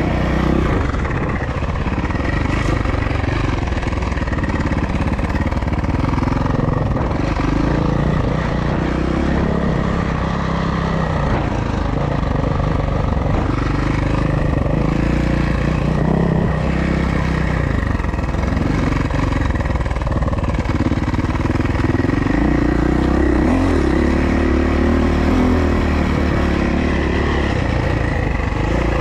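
Suzuki motocross bike engine running hard, its pitch rising and falling over and over as the throttle is worked on and off.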